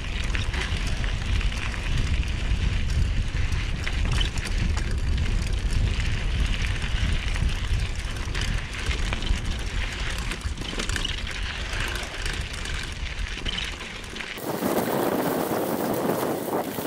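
Wind buffeting the camera's microphone over the rattle and crunch of a mountain bike's tyres and frame running down a dry dirt singletrack. About fourteen seconds in the sound changes abruptly: the low rumble drops away and a brighter hiss takes over.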